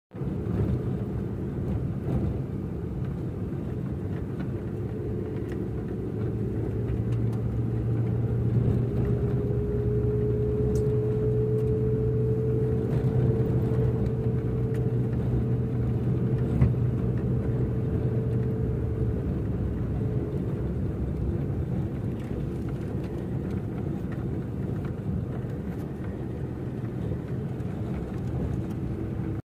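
A vehicle's engine running steadily with tyre and road noise, heard from inside the moving vehicle on a dirt track. The engine note rises a little and gets louder about six seconds in, holds for roughly ten seconds, then eases back.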